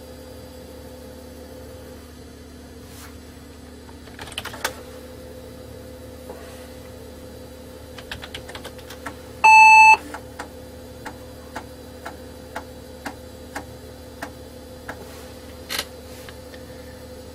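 Keystrokes on an old PC keyboard, then a short square-wave beep from the 486 PC's internal speaker about halfway through. It is followed by a run of evenly spaced clicks, about two a second, from the floppy drive working the disk, all over the computer's steady hum.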